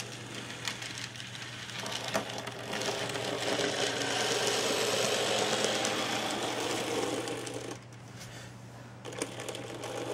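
N gauge model locomotive's small electric motor whirring as its wheels run along the track. It grows louder as the train comes close, then fades away about eight seconds in. A steady low hum runs underneath.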